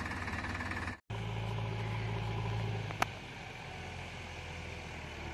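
Sonalika DI-42 RX tractor's diesel engine running steadily, cut off abruptly about a second in; then a backhoe loader's diesel engine running steadily, with one sharp click about three seconds in.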